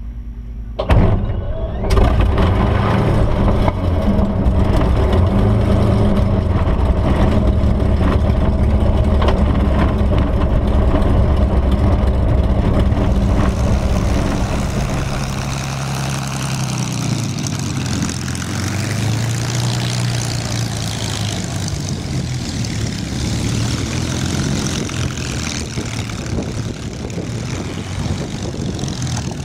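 Spitfire's Rolls-Royce Merlin V12 engine starting about a second in and then running steadily at low power, heard loud and deep from inside the cockpit. From about halfway the engine is heard from outside the aircraft, with less of the deep rumble.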